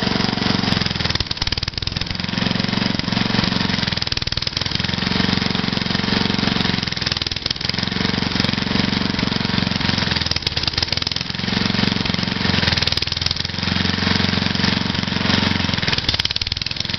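A 12-horsepower lawn mower engine running steadily as the mower is pushed through snow. Its low rumble swells and fades every couple of seconds.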